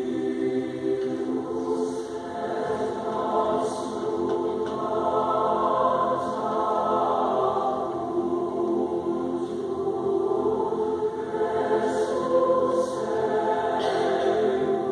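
Mixed choir of teenage voices singing sustained chords.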